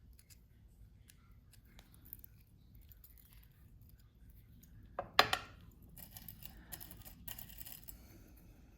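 Jewelry wire and small metal hand tools handled on a workbench: faint light clicks, a sharp metallic clink about five seconds in, then scratchy rustling of wire.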